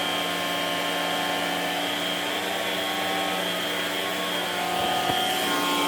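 Homemade central vacuum system running steadily: the hiss of suction through the hose, with a steady hum underneath.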